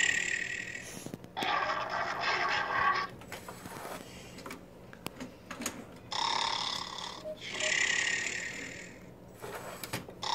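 Recorded snoring sound effect played from the computer by a LEGO WeDo program, in long noisy breaths one to two seconds each, with a quieter gap in the middle. It is the lion model's 'sleeping' sound.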